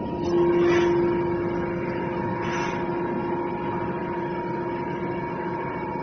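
Hydraulic scrap metal baler running: a steady machine hum with a whine that comes in sharply about half a second in, is loudest for the first second or so, then eases off but keeps going.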